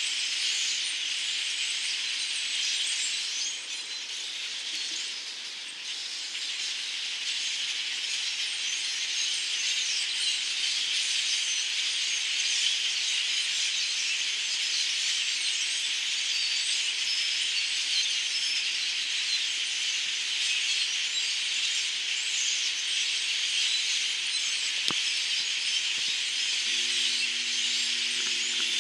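A large flock of migrating birds calling all at once, a dense steady high-pitched chatter of countless overlapping chirps and squeaks.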